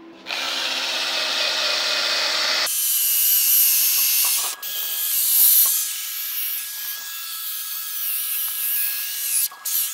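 Cordless Makita 18 V drill spinning a wire wheel brush against a freshly laid steel weld seam, cleaning the joint. It starts with a duller hiss, and about three seconds in the brush bites harder into the metal with a harsh, high scratching that carries on, with a brief break, until shortly before the end.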